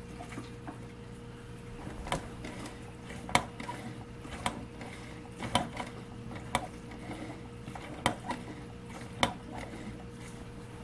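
Fluval G3 canister filter's priming button being pumped by hand: about seven sharp plastic clicks roughly a second apart. Each press draws a vacuum to pull tank water into the empty canister and prime it.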